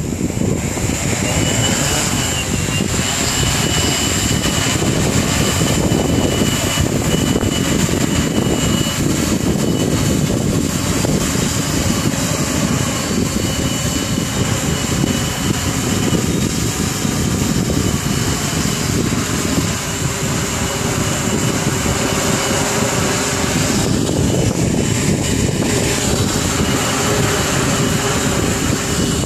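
Octocopter drone's rotors whining steadily in flight, the high pitch wavering slightly, with wind buffeting the microphone.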